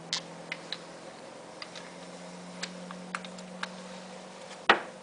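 Scattered light clicks and ticks, with one sharper click just before the end, over a faint steady hum.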